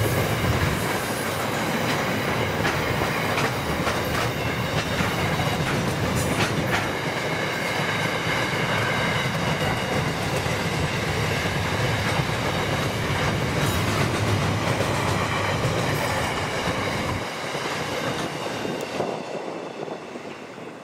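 Empty container flat wagons of a long intermodal freight train rolling past, wheels clacking over rail joints with some high wheel squeal. The rolling noise dies away over the last few seconds as the end of the train passes.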